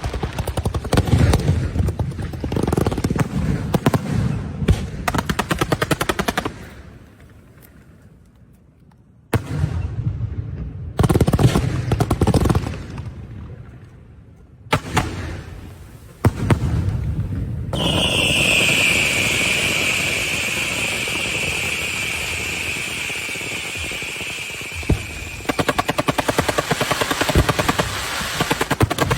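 Fireworks going off: dense runs of rapid bangs in several bursts with short lulls between, then a long high whistle with a slowly falling pitch over a steady hiss, giving way near the end to fast crackling.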